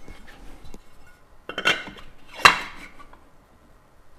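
Hard engine parts being handled and fitted together: a cylinder knocking against the crankcase, with small clicks and two louder clinks, the second the loudest, each ringing briefly.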